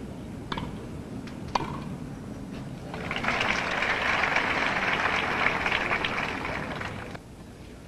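Tennis ball struck by rackets in a rally with two sharp pops, then a crowd applauding for about four seconds after the point, cutting off abruptly.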